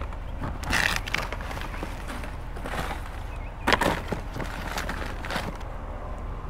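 Rustling and crinkling of paper, plastic and clothing as gloved hands dig through a full wheeled trash cart. The rustles come in short scattered bursts, the loudest about four seconds in, over a steady low rumble.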